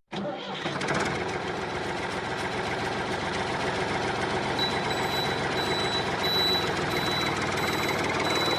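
A vehicle running steadily, with a reversing alarm beeping repeatedly from about halfway through.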